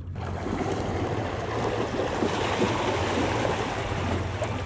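A school of pink salmon splashing at the water's surface close in: a dense, continuous patter of many small splashes.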